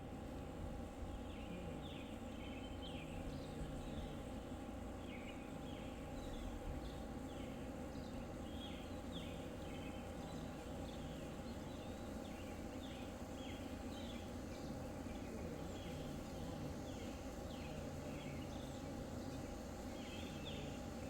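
Birds chirping in short, irregular calls over a steady low background hum.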